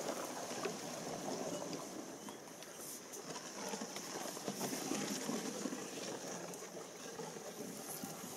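Reed stems brushing and scraping along the hull of a mokoro canoe as it is pushed through a dense reed channel: a continuous crackling rustle.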